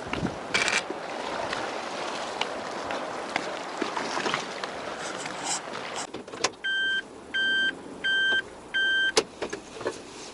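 Rustling handling noise with scattered clicks, then four evenly spaced electronic beeps, each about half a second long, followed by a sharp click.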